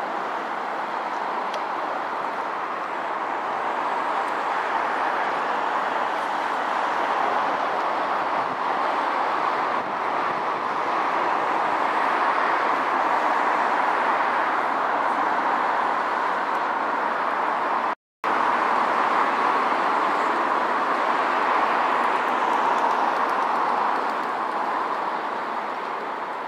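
Steady street traffic noise, mostly the hiss of car tyres on the road, swelling and easing slowly. It cuts out completely for a moment about two-thirds of the way through.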